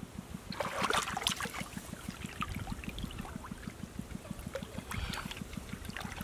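Hands groping and splashing in shallow muddy water, small splashes and trickles, busiest about a second in. Beneath it runs a steady low throb of about seven pulses a second.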